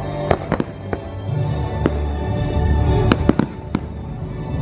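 Aerial fireworks shells bursting in a string of sharp bangs, bunched in the first second and again around three seconds in, over loud show music with held notes and a deep bass.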